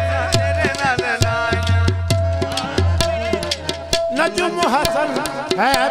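Qawwali music: tabla strokes in a steady rhythm under a held harmonium tone, with the low drone dropping out near four seconds and singing voices swelling in ornamented phrases toward the end.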